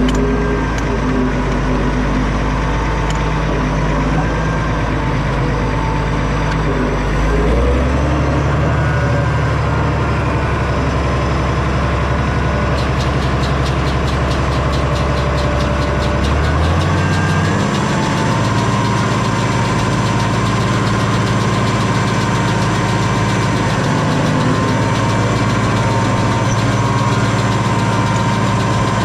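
Farmall 706 tractor engine running steadily, its speed stepping up twice, about a quarter of the way in and again just past halfway. A fast, even ticking rattle joins in a little before the second step.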